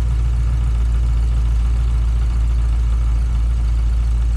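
LS V8 engine, fed by a Jackpot throttle-body fuel injection system, idling steadily at about 850 rpm while it warms up after its first start.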